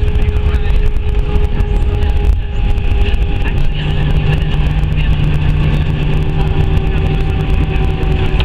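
Airbus A320 landing rollout heard from inside the cabin: a loud, steady rumble of the aircraft rolling down the runway and decelerating, with a steady whine over it and a lower hum that sets in about three and a half seconds in.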